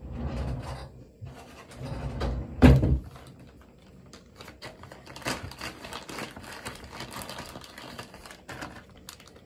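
Handling noise: a few bumps, then a heavy thump about two and a half seconds in, followed by the crinkling and rustling of a clear plastic travel toothpaste kit pouch being handled for several seconds.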